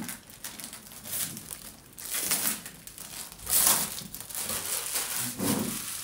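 Thin plastic wrapping crinkling in a run of bursts as it is pulled off and bunched up from small loudspeaker cabinets.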